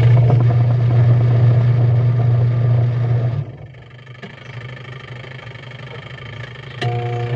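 Single-tub washing machine motor humming steadily, cutting out about three and a half seconds in; near the end a click, and the motor starts again. The motor is wired straight across, bypassing the cut wire, so it turns one way only, without reverse.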